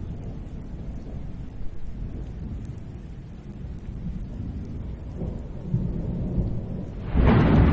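Low steady rumble with a hissing wash over it, which swells much louder about seven seconds in.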